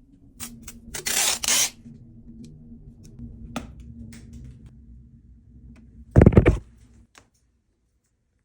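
Hand-work handling sounds on the laptop stand being restored: a brief scraping rustle about a second in, a sharp click, and a loud knock about six seconds in, then nothing.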